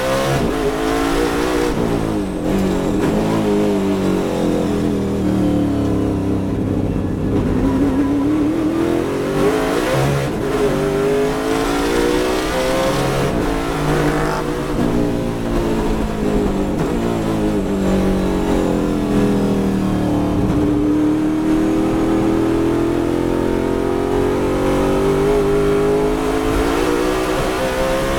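Ford Mustang race car's V8 engine heard from inside the cockpit at racing speed, its note rising under hard acceleration and dropping sharply at a gear change about ten seconds in, then climbing again toward the end, over constant road and wind noise.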